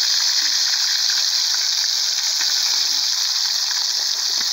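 Pieces of traíra fish deep-frying in hot fat in a pan over a campfire: a steady sizzle with fine crackling.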